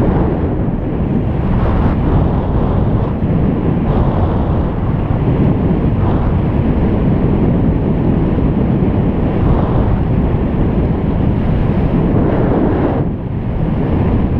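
Wind buffeting the camera microphone on a bicycle moving along at speed: a loud, steady low rumble that dips briefly near the end.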